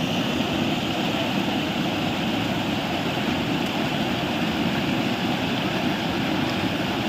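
Floodwater from an overflowing stream rushing across a submerged road and spilling over its edge: a steady, unbroken rushing noise.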